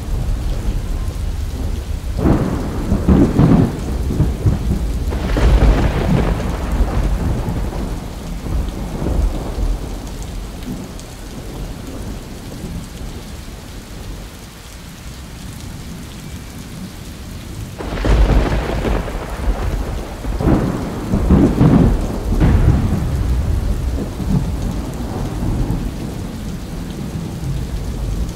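Thunderstorm: steady rain with two long rolls of thunder, one starting about two seconds in and another about eighteen seconds in, quieter rain between them.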